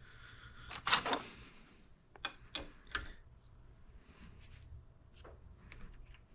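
Small metal gearbox parts clicking and clinking as a new cruciform is threaded onto the gear selector rod by hand. There is a short rattle about a second in, then three sharp clicks between two and three seconds in, and a few fainter ticks after.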